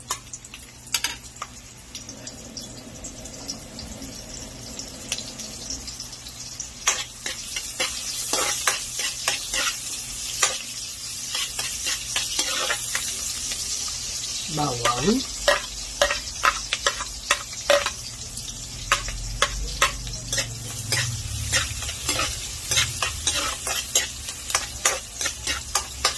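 Garlic and onion sizzling in hot oil in a metal wok while a metal ladle stirs, scraping and clinking against the pan. The sizzle grows louder about a third of the way in.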